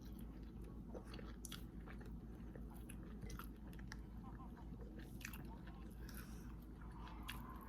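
Close-up mouth sounds of a person eating seafood boil: chewing and biting with scattered small wet clicks and smacks, over a steady low hum.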